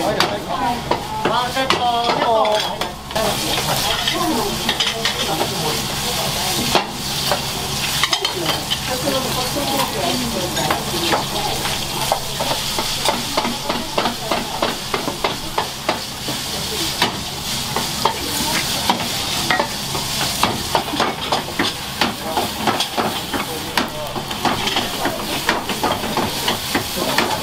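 Food sizzling in a hot frying pan while it is stirred and tossed, with many quick, irregular clicks of utensils and pan metal over a steady hiss.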